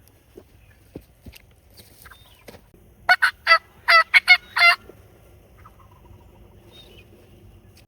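Wild turkey yelping: a quick run of about seven loud, sharp notes lasting under two seconds, near the middle.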